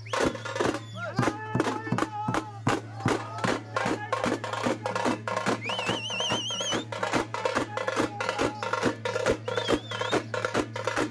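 Procession drums beaten in a fast, steady rhythm for a folk deity dance, over a steady low hum. A warbling whistle sounds briefly about six seconds in.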